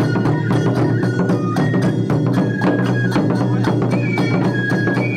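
Japanese festival hayashi music: a bamboo flute playing held high notes over fast, steady strikes of drums and other percussion.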